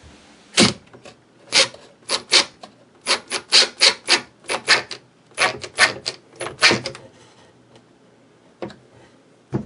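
Hammer driving nails into wood, about eighteen sharp blows in quick runs over some six seconds. After that it goes quieter, with a single knock near the end.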